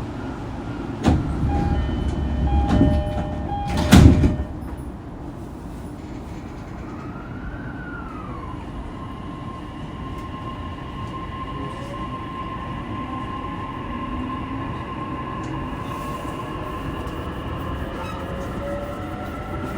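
Inside a JR East E233-3000 series train: a chime sounds and the doors shut with a loud thud about four seconds in. The train then pulls away, its inverter-driven traction motors whining in tones that climb steadily as it gathers speed.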